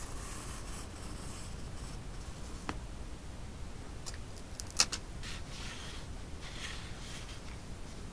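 Clear plastic sticker film handled and cut with small craft scissors. The film crinkles at the start. A little past halfway come a sharp click and then a run of snipping and crackling as the scissors cut the plastic.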